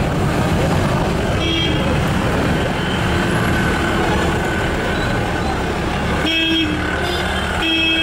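Road traffic running steadily with vehicle horns honking: a short toot about a second and a half in, another about six seconds in, and a longer honk near the end.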